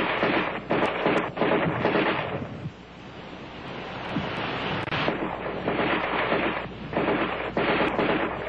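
ArmaLite AR-10 7.62 mm rifle firing several short bursts of automatic fire with brief pauses between them, with a quieter stretch about three seconds in, heard through a rough, worn old film soundtrack.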